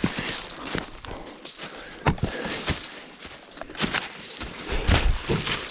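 Irregular crunching steps through dry leaves and brush, with a light jingle of carried gear and a few heavier thuds.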